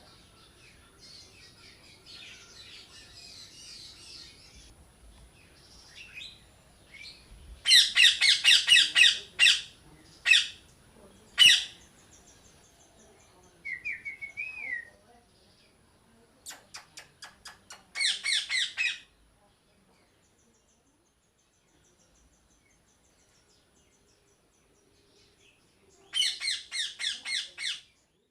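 Parrots squawking in loud bursts of rapidly repeated harsh calls, several times with pauses between, plus a short warbled whistle about halfway through and faint chatter in the first few seconds.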